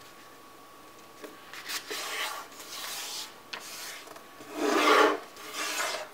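A sheet of paper being folded and creased by hand on a tabletop: a series of rubbing, sliding strokes as the fold is pressed flat, the loudest about five seconds in.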